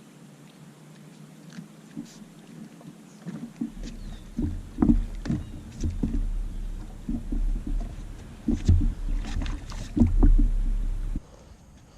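Boat noises: a low rumble with irregular knocks and thumps, cutting off suddenly near the end.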